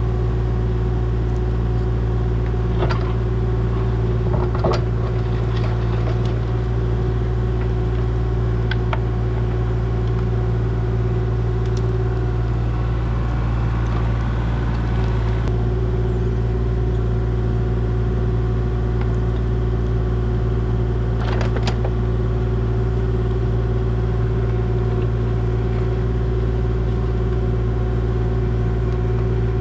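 An engine running steadily at one speed, with a few short knocks about three, five and twenty-one seconds in.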